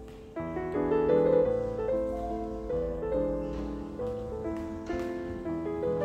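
Background piano music: a slow, gentle melody over held chords, with a louder new phrase coming in less than half a second in.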